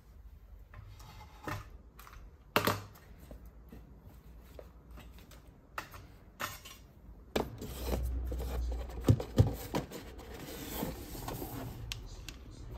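Handling sounds as a keyboard, mouse and metal laptop stand are taken out of a cloth wrap and set on a desk: cloth rustling with scattered knocks and clatters, the loudest about two and a half seconds in, and a longer stretch of rustling with a few sharp knocks in the second half.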